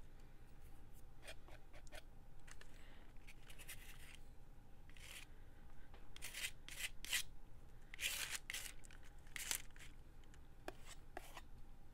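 Paper being worked by hand at a craft table: a series of short rasping strokes, most of them between about five and ten seconds in.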